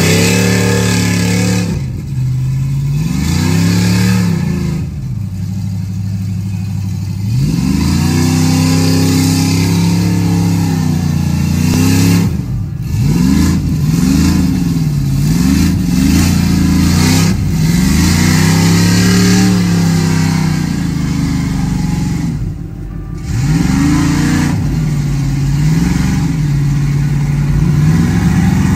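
The engine of a lifted full-size SUV revving hard over and over, its pitch climbing and dropping every second or two, as the big tyres spin and fling mud through a deep bog.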